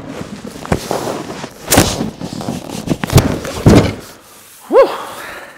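A heavy cardboard box holding a wood lathe is heaved up onto a wooden workbench and shoved into place: cardboard scraping and several knocks and thuds against the wood. The handling ends in a short strained grunt of effort.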